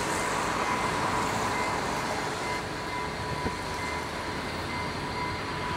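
Steady outdoor background rumble and hiss with a thin, steady whine running through it.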